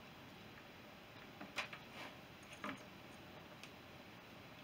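A few faint metallic clicks and taps as the Honda CB350's transmission gears and shafts are moved and seated by hand in the crankcase half, clustered between about one and a half and three seconds in, with one more later.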